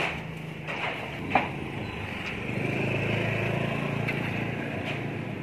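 A small engine running, growing louder through the middle and easing off again, with a sharp knock about a second and a half in.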